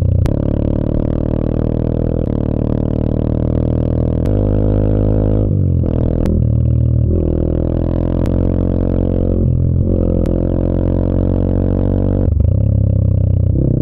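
Yamaha Serow 250's air-cooled single-cylinder engine running under way with a steady drone. Its revs dip briefly and pick up again about six seconds in, near ten seconds and about twelve seconds in.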